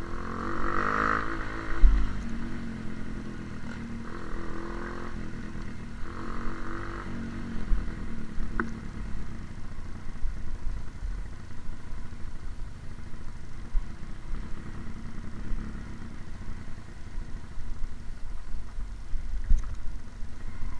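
Motorcycle engine running on a trail ride, revving up in the first few seconds and again around five seconds in, then running on with a steady low rumble.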